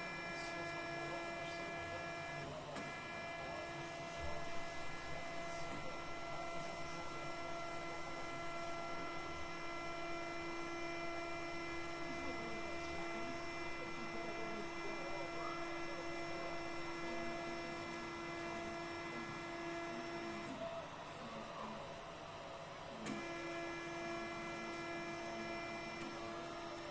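Stepper motors of a CoreXY 3D printer's XY axes whining with a steady pitched hum. The whine cuts out for about two seconds near the end, then comes back.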